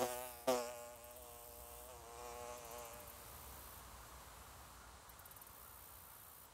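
Bee buzzing in flight: a wavering buzz that restarts sharply about half a second in, swells again, then fades away within a few seconds.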